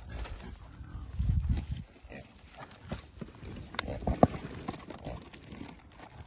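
A water-filled plastic fish bag being handled and untied: crinkling plastic and small clicks, with a louder low rumble lasting under a second about a second in.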